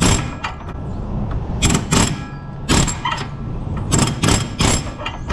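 Pneumatic air hammer firing in several short, loud bursts, its bit pounding a rusted part by the steering rack to knock it loose.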